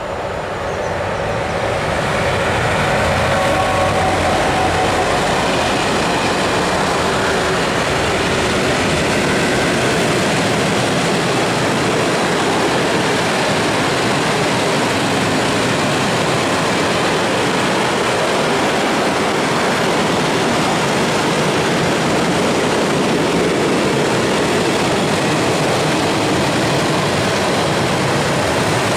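Freight train hauled by an E6ACT electric locomotive passing close: the sound grows louder over the first two or three seconds as the locomotive goes by, then a long train of tank wagons rolls past with a steady noise of wheels on rails.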